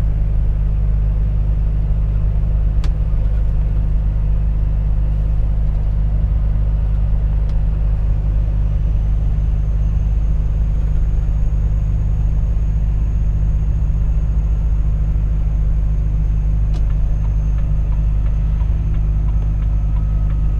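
Volvo FH 460 truck driving, its 13-litre straight-six diesel and the road making a steady low rumble with no change in pace.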